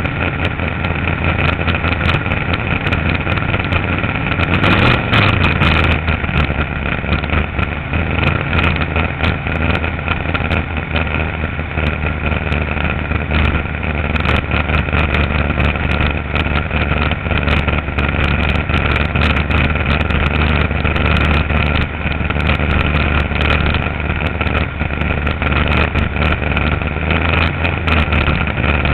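A race boat's little Chevrolet engine running steadily under way, with a brief louder surge about five seconds in.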